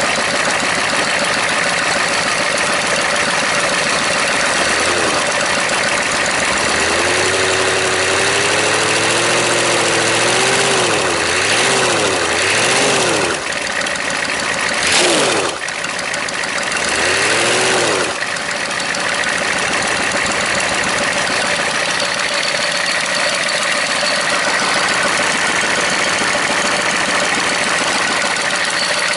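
Rebuilt Chevy 6.5 turbo-diesel V8 running on its test run, idling steadily, then revved up and down several times between about five and eighteen seconds in before settling back to idle.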